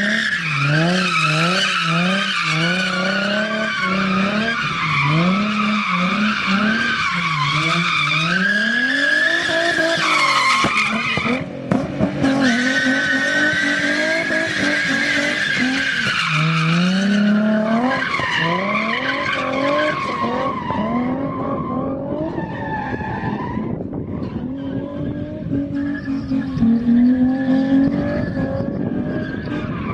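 Car engine with a 3-inch catback exhaust revving up and down quickly and repeatedly, then climbing and falling in longer pulls, with tires squealing while the car drifts.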